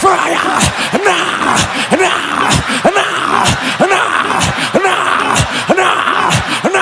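A man praying aloud in tongues: a fast, unbroken run of repeated syllables, about three a second, each falling in pitch.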